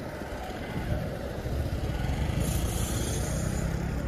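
Road traffic going by: a steady low rumble of vehicles, with a brief hiss about two and a half seconds in.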